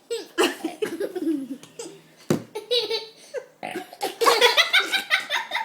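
A child burping, with laughter that gets loudest from about four seconds in.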